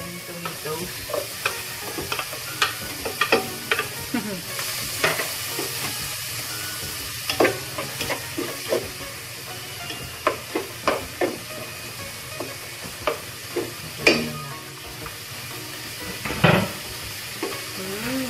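Onion and garlic sizzling in butter in a frying pan, with a utensil stirring and scraping them and clicking against the pan at irregular moments.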